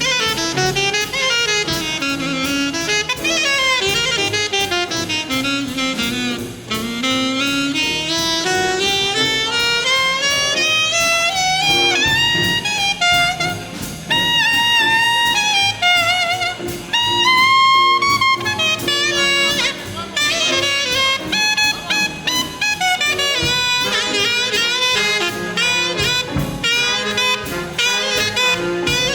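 Big band playing swing jazz, with a saxophone soloing in quick runs of notes that climb and fall over the horns and rhythm section.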